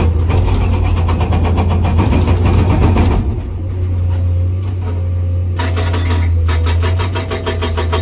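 Hydraulic breaker on a Komatsu PC200 excavator hammering hard rock in rapid, even blows, in two runs: the first stops about three seconds in, the second starts about five and a half seconds in. The excavator's diesel engine drones underneath.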